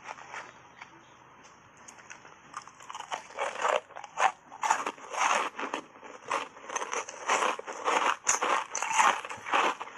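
Ice chunks coated in matcha powder being bitten and chewed: a few faint clicks at first, then from about three seconds in a fast run of loud, crunchy bites.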